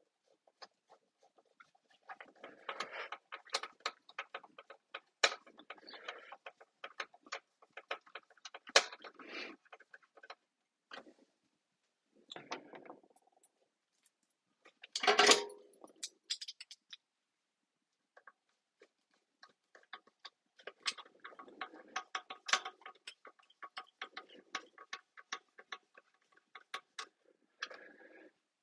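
Screwdriver driving small screws into the metal body of a CADAC gas grill to fix neodymium magnets: runs of quick clicks and ticks, with one louder knock about fifteen seconds in.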